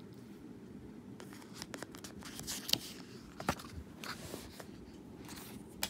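Paper pages of a book being turned by hand: rustling with a few sharp crinkles and clicks, over a steady low hum.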